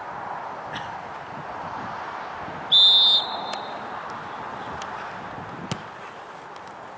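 Referee's whistle, one short blast about three seconds in, over a steady background of outdoor noise, with a single sharp click a little later.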